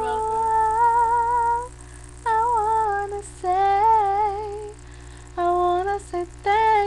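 A woman singing alone without accompaniment, slow and drawn out, holding long notes that waver in pitch, with short breaks between phrases.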